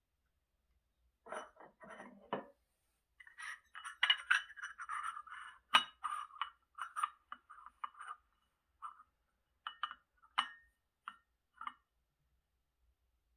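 Glazed ceramic coffee cup and saucer being set down and shifted by hand, clinking against each other: a run of light clinks, with sharper knocks about six seconds in and again near ten seconds.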